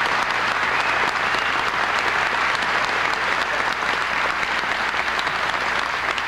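Audience applauding, a steady, dense round of clapping.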